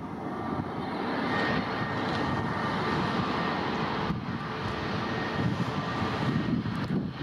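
Airplane engines running loud and close, a dense steady rumble with a faint high whine over it.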